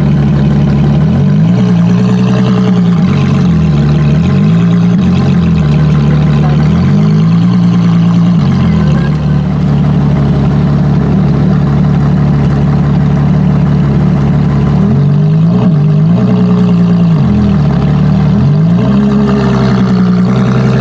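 Ferrari LaFerrari Aperta's 6.3-litre V12 running at low revs, its pitch dipping and rising again several times.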